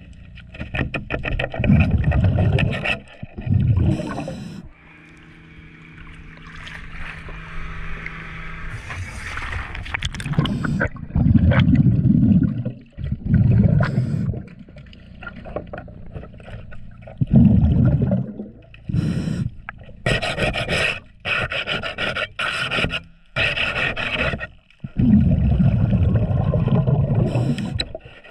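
Underwater diver's breathing through a regulator: a long hissing inhale and repeated low rumbling bursts of exhaled bubbles, about a second each. Mixed in are scraping and rasping sounds of a metal tool working on the boat's trim tab.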